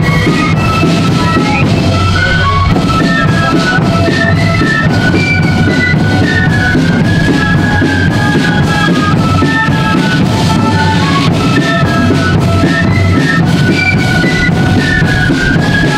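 Marching flute band playing a tune: high, stepping flute melody over a steady march beat of drums.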